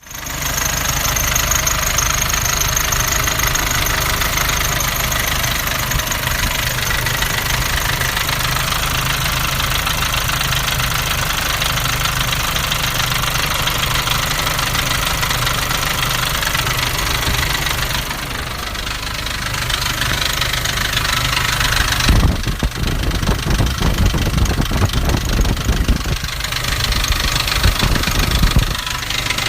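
Nissan Navara D40's 2.5 dCi four-cylinder turbodiesel running with a knocking rattle that sounds like a dual-mass flywheel rattle but comes from a cracked intake manifold. About two-thirds of the way through, a heavier, uneven low rumble sets in.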